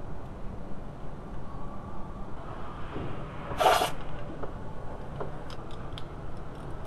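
Ratchet on a long extension working the thermostat flange bolts: a short rasping burst of ratcheting about halfway through, then a few light clicks near the end, over a steady low hum.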